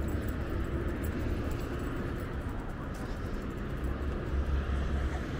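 Steady low rumble of wind and rolling noise on the microphone of a camera riding on a moving bicycle, with a few faint ticks.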